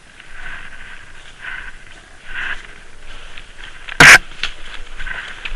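Leaves and gear rustling as an airsoft player shifts behind a tree, then one loud, sharp crack about four seconds in, followed by a few faint clicks.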